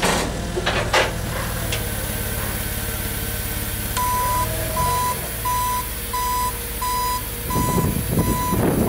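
Hyster 80 forklift engine running steadily, with a couple of sharp knocks in the first second. From about four seconds in its reversing alarm beeps evenly, about one beep every 0.7 s, as the forklift backs up.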